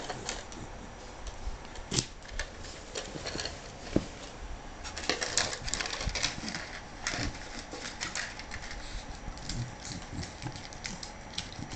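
Miniature schnauzer nosing a plastic cup across the carpet and knocking it over to get at the pretzels inside: irregular light clicks and taps, with two sharper knocks early and a busier run of clicking in the middle.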